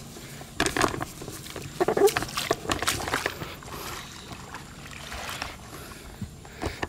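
A hooked fish splashing and thrashing in shallow water as it is reeled in to the bank, a string of irregular short splashes.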